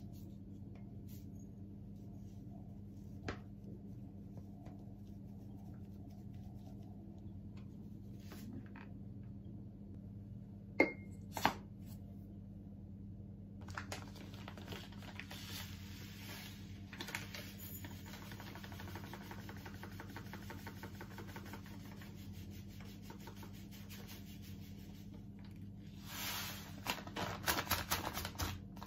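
Dry granules poured from a plastic bag into a white ceramic canister: a steady granular hiss from about fourteen seconds in, getting louder near the end along with the crackle of the plastic bag. Two sharp clicks about eleven seconds in, over a steady low hum.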